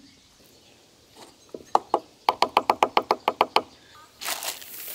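A quick run of about a dozen sharp hard knocks, about eight a second, while the air fryer attachment's plastic basket is being handled on a wooden table. About four seconds in, a plastic bag, holding frozen breaded chicken, starts crinkling.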